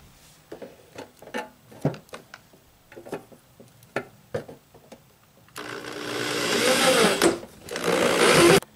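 Cordless drill driving a screw through the heater's wall box into the stud. A few light clicks and taps come first as the screw is set. Then the drill runs for about three seconds, growing louder, and stops abruptly.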